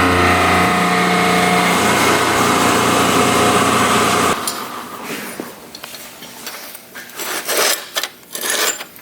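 A shop power tool's motor running at a steady pitch, which cuts off abruptly a little over four seconds in, followed by light knocks and clinks of metal parts being handled.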